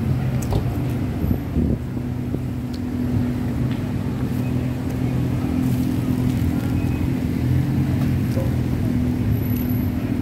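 Street traffic: a steady low engine hum, with a few faint clicks and knocks.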